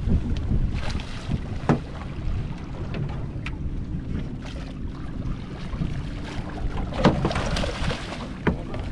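Wind buffeting the microphone over water slapping a small boat's hull, with a few sharp knocks. About seven seconds in, a hooked mulloway (jewfish) thrashes and splashes at the surface as it is netted beside the boat.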